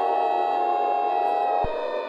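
Steady, loud electronic emergency alert tone with many overtones, as in an EAS-style broadcast alert. Its strongest tone cuts off with a click about one and a half seconds in, leaving a quieter steady tone.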